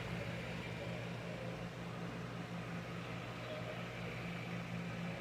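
Store room tone: a steady low hum with a faint hiss behind it.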